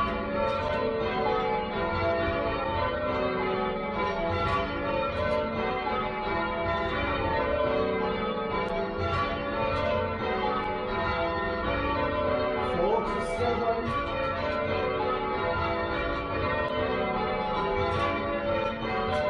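Tower bells rung in changes (change ringing): a continuous, even run of overlapping bell strikes, each note ringing on into the next.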